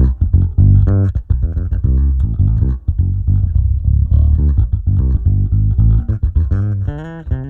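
Electric bass guitar played through an Aguilar preamp: a busy run of plucked notes with a full low end, ending with a few higher notes that bend in pitch.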